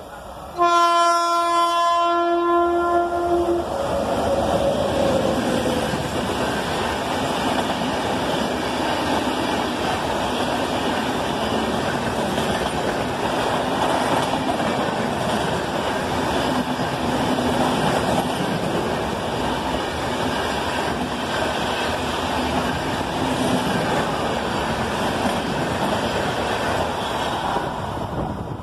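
A locomotive horn sounds one blast of about three seconds as an express approaches. Then a rake of LHB coaches runs through the station at speed with a steady rumble and wheel noise, easing a little near the end as the last vehicle passes.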